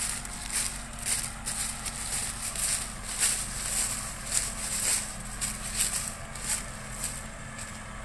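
Footsteps crunching through dry sugarcane leaf litter, a few crisp crunches a second, over a low steady engine hum.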